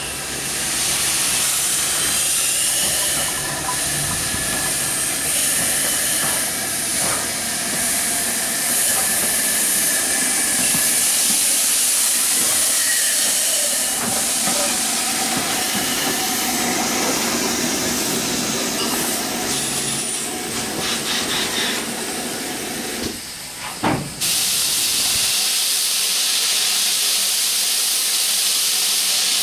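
Great Northern Railway class N2 steam tank locomotive moving up at low speed with steam hissing and rail noise. About 24 seconds in the sound changes suddenly to a steady, high steam hiss from a standing BR Standard steam tank locomotive.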